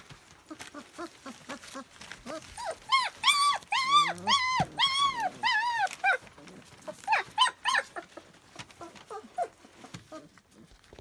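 Young puppies whining and crying: small short whimpers, then a run of about eight loud high cries, each rising and falling, in the middle, and a few more after.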